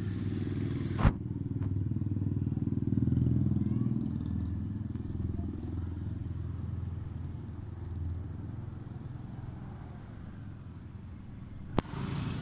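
Street traffic: motor vehicle engines running and passing, a low steady rumble that swells and fades. There is a sharp click about a second in and another near the end.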